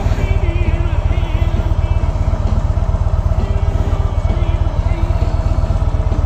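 Motorcycle engine running steadily, a low, even pulsing rumble, with faint wavering higher tones over it.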